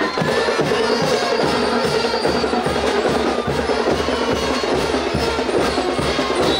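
School marching band playing a military march, with drums keeping a steady marching beat under the melody.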